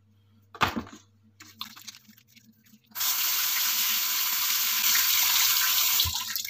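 Kitchen tap opened about three seconds in, water running steadily over hands being rinsed of dish soap in the sink, then shut off shortly before the end. A single short knock-like sound comes under a second in.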